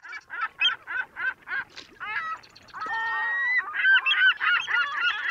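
A flock of birds calling: separate calls at about three a second at first, then from about two seconds in many calls overlapping, with one longer, steady call a little after that.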